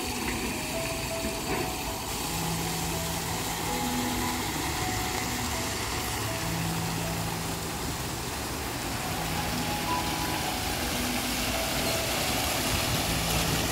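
Water from a tiered stone fountain splashing and spilling over its tiers into the basins, a steady rush of water.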